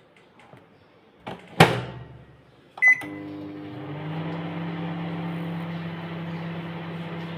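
Microwave oven door shut with a sharp clunk, a short keypad beep, then the oven starting up and running with a steady hum.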